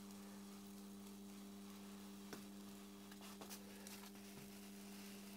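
Faint, steady electrical hum of a Proxxon Thermocut hot-wire cutter, switched on while a Styrodur foam block is pushed through its heated wire; a few faint ticks.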